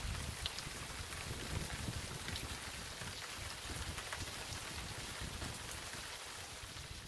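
Steady rain falling, with scattered drops ticking, over an uneven low rumble.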